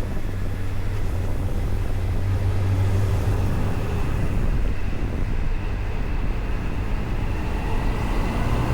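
Honda CBF600SA's inline-four engine running steadily under way, over road and wind noise. A deep steady hum is strongest for the first three seconds, then eases.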